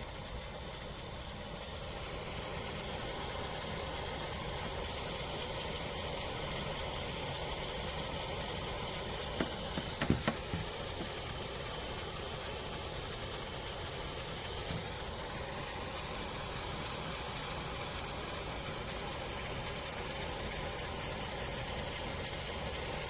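COSTWAY 12,000 BTU portable air conditioner running, its fan giving a steady rushing hiss. A few small knocks about ten seconds in.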